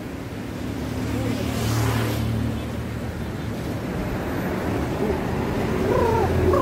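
Road traffic going by over a steady low rumble, with one vehicle passing and swelling about one and a half to two seconds in. A voice is heard briefly near the end.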